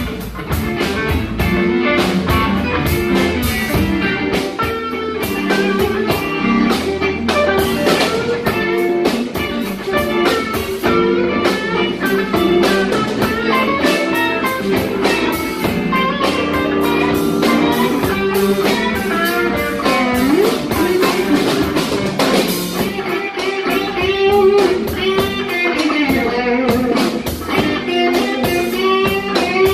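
Live blues band playing, with electric guitar to the fore and bending notes near the middle.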